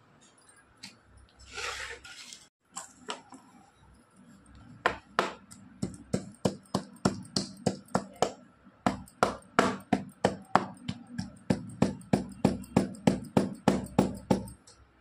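Cardamom pods being pounded with a stone pestle on a wooden chopping board: a steady run of sharp knocks, about three a second, starting about five seconds in. A brief rustle comes near the start.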